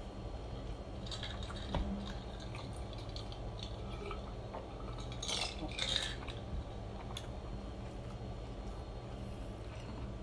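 Sips from a glass mug of iced drink, with ice clinking against the glass and liquid sloshing in a cluster about five to six seconds in, and a sharp clink of glass near two seconds in. A steady low hum runs underneath.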